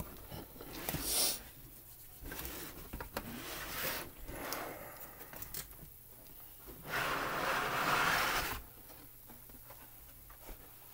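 Cardboard packaging being handled and opened, with cardboard rubbing and scraping in several short bouts. The longest and loudest comes about seven seconds in and lasts a second and a half.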